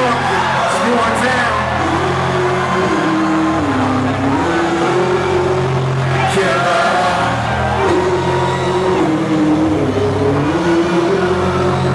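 Loud hip-hop beat played live over a club sound system: heavy, steady bass with a gliding melodic line over it.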